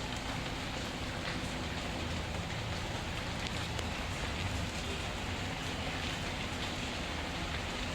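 Steady rain falling, mixed with faint, scattered crackles of a wood fire.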